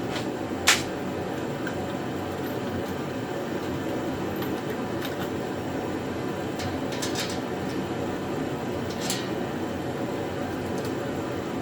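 Steady hum of a fan or air conditioner, with a sharp click a little under a second in and a few lighter clicks later, as small bolts and washers are handled.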